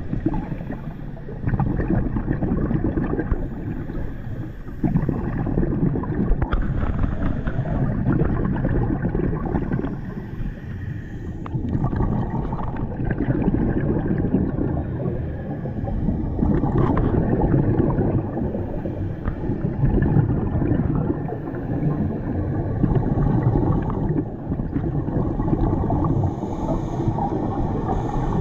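Underwater sound picked up through a diving camera's housing: a dense, low, churning rumble of scuba bubbles and water moving around the housing, rising and falling in level every few seconds.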